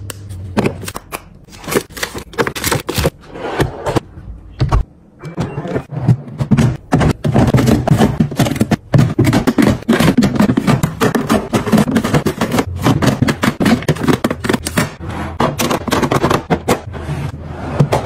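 Plastic food-storage containers clicking and clacking as they are handled and set into a refrigerator freezer drawer. The clicks are sparse at first and come thick and fast from about five seconds in.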